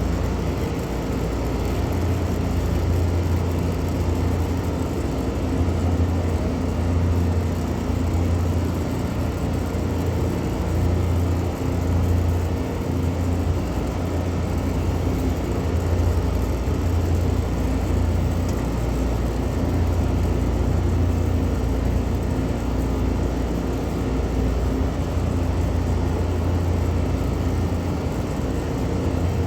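Steady, loud, low machine drone with a deep hum that swells and eases every second or two.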